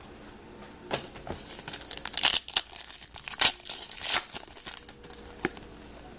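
Foil trading-card pack wrapper crinkling and tearing in a run of crackly bursts, loudest in the middle, as a pack is ripped open.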